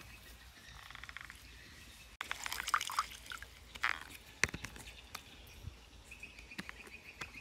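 Halved limes squeezed in a plastic hand-held citrus press: from about two seconds in, wet squelching and short clicks as the press closes, with juice dripping into a bowl.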